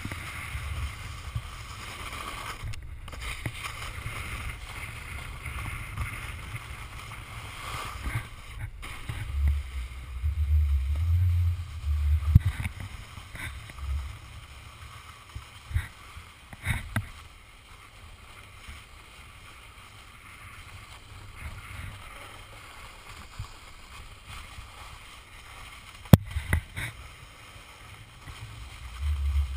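Wind rushing and buffeting over an action camera's microphone during a snowboard ride, with the hiss of a board sliding over snow, low rumbling gusts and a few sharp knocks.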